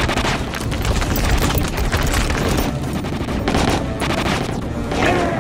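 Sustained volley of rapid gunfire from several automatic weapons, shots overlapping densely with heavy booms.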